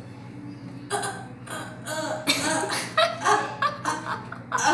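A person's voice in short broken sounds, starting about a second in, over a faint steady low hum.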